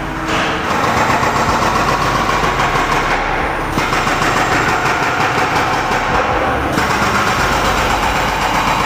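Hydraulic rock breaker on a Hyundai tracked excavator hammering rock, a loud, rapid, continuous clatter of blows over the machine's running engine.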